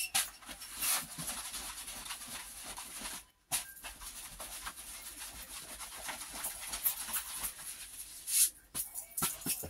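Rustling and crinkling of a paper poster and its plastic wrapping being handled, with scattered sharper crackles and a brief dropout about three seconds in.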